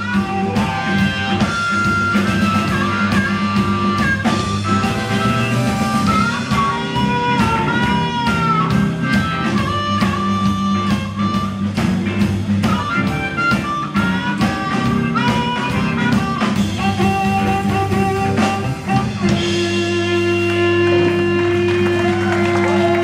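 Live blues band playing: amplified harmonica lead over hollow-body electric guitar, acoustic guitar and drum kit. Near the end the drumming stops and a held chord rings on under the harmonica as the song closes.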